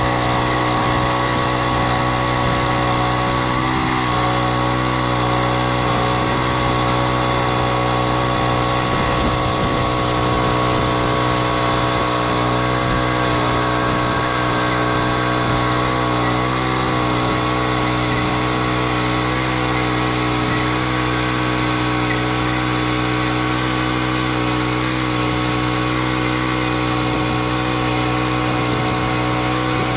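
Small petrol engine of a Frontier (Norwood) portable bandsaw mill running steadily while its blade cuts through a green ironbark log. Its pitch dips briefly about four seconds in and again around sixteen seconds as the cut loads it.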